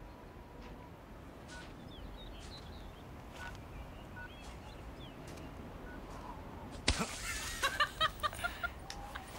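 Quiet outdoor stillness with a few faint, scattered bird chirps. About seven seconds in comes one sudden sharp thud: a snowball hitting a man's coat. A quick run of short, high chirps follows it.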